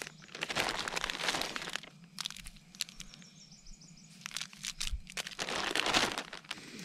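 Clear plastic zip-top bag crinkling as hands rummage in it and pull out instant coffee stick packets. The rustling comes in several bursts, with a quieter stretch in the middle.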